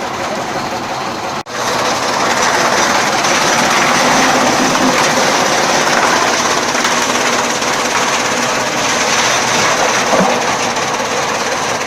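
Chaff cutter running with a loud, steady mechanical clatter. The sound drops out for an instant about a second and a half in, then carries on slightly louder.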